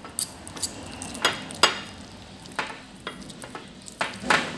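A metal fork mashing ripe avocado in a bowl: irregular squishing strokes, with the tines clinking and scraping against the bowl.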